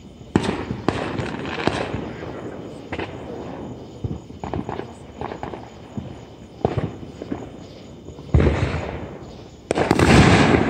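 Fireworks going off: a string of sharp bangs and pops, then two much louder booms near the end, each followed by a long rumbling tail.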